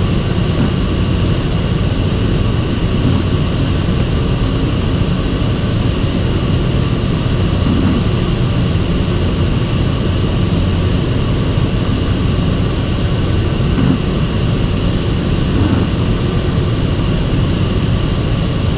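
Seaplane's engine and propeller running steadily in cruise flight, a loud, even drone heard from inside the cabin.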